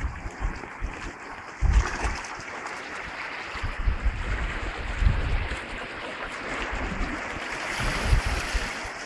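Small sea waves washing and splashing against shoreline rocks, a steady rushing wash, with a few low gusts of wind buffeting the microphone.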